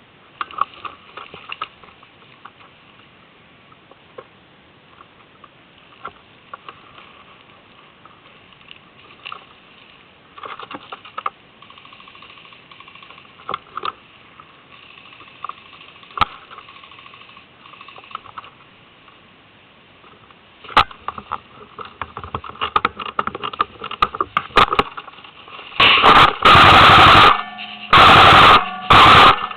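Airsoft guns firing in a skirmish: scattered single clicking shots over a quiet background, growing busier, then two loud sustained bursts of about a second each near the end.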